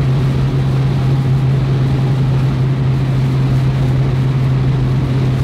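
A convertible car cruising at a steady speed with the top down: a steady engine drone over wind and road noise.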